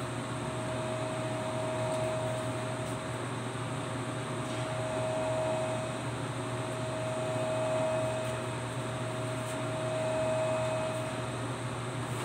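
Steady hum of a running machine, with a whining tone that swells and fades every two to three seconds.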